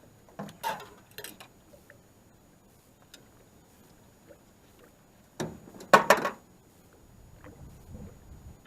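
Scattered knocks and clinks, with a loud cluster of them about five and a half seconds in and a faint low rumble near the end.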